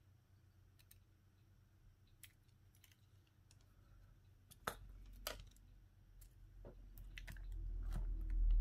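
Small clicks and taps from handling tools and phone parts on a work surface during a phone screen repair, with two sharper clicks about halfway through. A low rumble swells toward the end.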